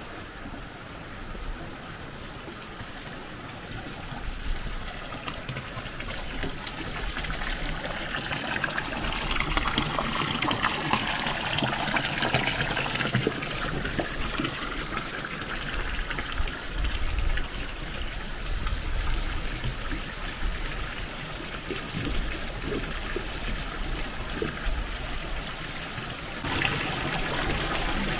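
Running water, a steady rushing and trickling that grows louder over the first dozen seconds, then holds, rising again near the end.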